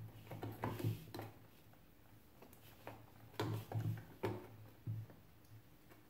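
Small clicks and knocks of a spring-loaded desoldering pump and soldering iron being handled and set against a circuit board. They come in a quick cluster near the start and again in a second run around the middle.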